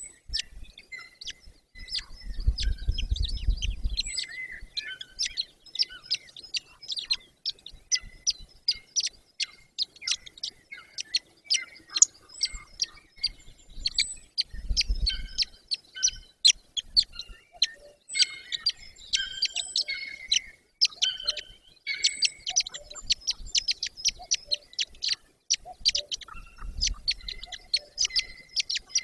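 Birds chirping: a dense run of quick, sharp, high notes with no pause. A low rumble breaks in three times, about two seconds in, around the middle and near the end.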